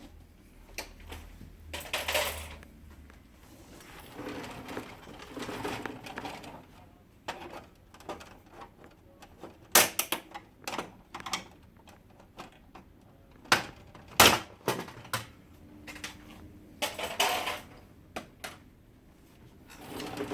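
Plastic side covers of an HP LaserJet Pro 400 M401 printer being pried off with a flathead screwdriver: irregular clicks and snaps as the cover latches release, with scraping and handling of the plastic in between. The sharpest snaps come near the middle.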